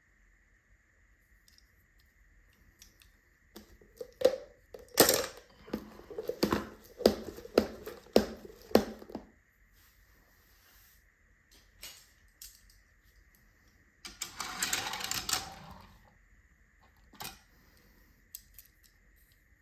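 Small toy cars clicking and clattering against each other and a hard surface as they are handled, in a quick run of knocks lasting several seconds. Later comes a short rustling burst, then a few single clicks.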